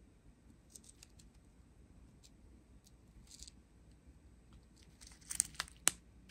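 Clear plastic bags of diamond painting drills crinkling faintly as a strip of them is handled, with scattered small clicks. A few sharper, louder crackles come near the end.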